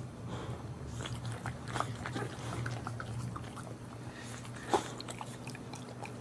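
A dog licking and chewing: scattered wet clicks and smacks, with one louder sharp sound about three quarters of the way through, over a low steady hum.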